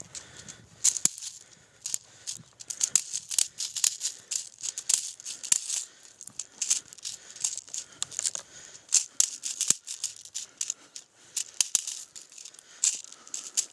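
Footsteps through dry leaves and brush: an irregular crackling and rustling of many small sharp clicks.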